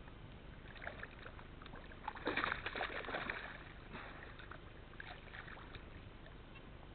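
A hooked fish splashing in shallow water at the bank, in a few short bursts, the loudest run of splashes about two to three and a half seconds in.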